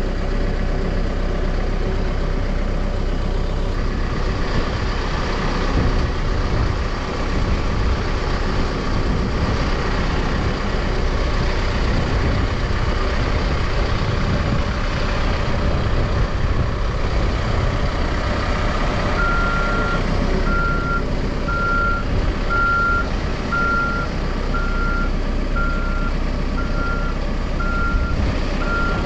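Caterpillar 420F2 backhoe loader's diesel engine running steadily. About two-thirds of the way through, its reversing alarm starts beeping at a steady single pitch, repeating about once a second as the machine backs up.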